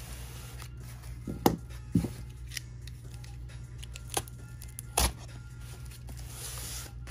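Cardboard shipping box being handled and opened, with a few sharp taps and scrapes, the loudest about five seconds in, over quiet background music.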